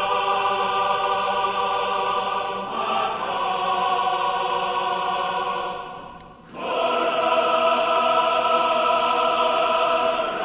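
Music in long held chords. The chord changes about three seconds in, fades out around six seconds, and comes back with a new chord.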